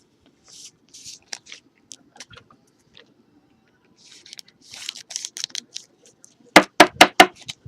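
Trading cards being handled on a table: soft sliding and rustling with small clicks, then a quick run of about five sharp taps near the end.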